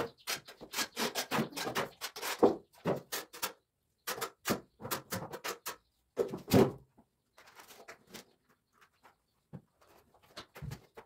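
Steel trowels scraping and knocking in a tub of tile mortar and against a ceramic baseboard strip as mortar is spread on its back: a quick, irregular run of scrapes and clacks, the loudest about six and a half seconds in, thinning out to a few light taps after about seven seconds.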